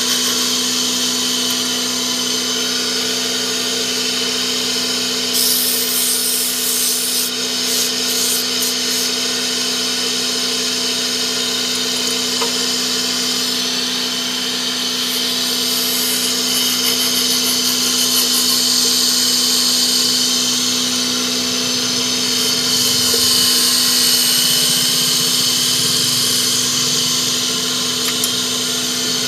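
Electric wood lathe running with a steady motor hum while a turning chisel cuts and scrapes a wooden knife handle. The cutting turns harsher about five to nine seconds in.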